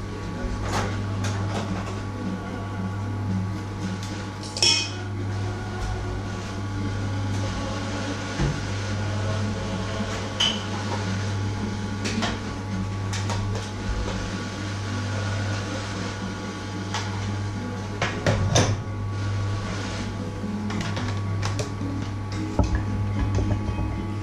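Kitchen things being handled: scattered clinks, clicks and knocks of utensils, a steel mixing bowl and a hand mixer being set up, over a steady low hum.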